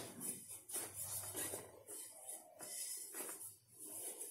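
A cotton cloth rustling and rubbing in irregular strokes as a hand tucks it down around a container inside a metal idli steamer, with a brief knock at the very start.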